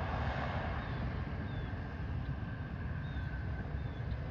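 Distant aircraft engine noise: a steady low rumble with a faint, steady high whine on top.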